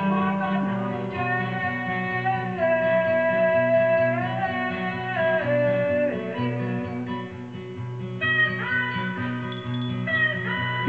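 Guitar music: a repeating low plucked pattern under long melody notes that bend and slide from pitch to pitch.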